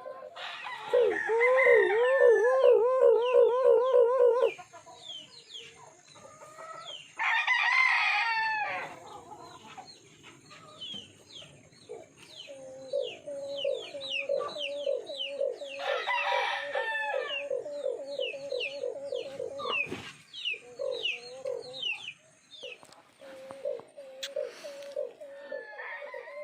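Alimukon, a Philippine dove, giving its rapid 'fighting call': long runs of quick, evenly repeated low coos, about four or five a second. Roosters crow twice in between, and faint chirps of other small birds run throughout.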